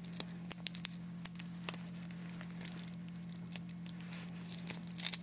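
Small scattered clicks and clinks of a watch clasp and bracelet being handled and closed, with a louder cluster of clicks near the end, over a steady low hum.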